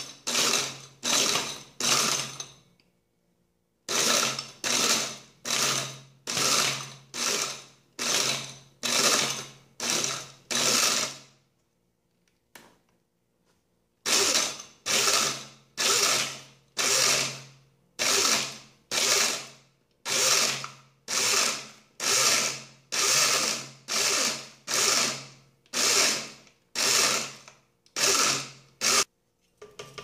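Oster Core 16-speed blender with a glass jar pulse-chopping ice cubes. The motor kicks on and dies away in short bursts, a little more than one a second, with two brief pauses, and stops near the end.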